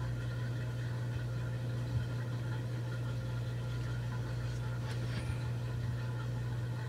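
A steady low hum, with a faint tap about two seconds in and light handling noise near five seconds in, as string is pulled to work a rubber anti-vibration mount through a chainsaw housing.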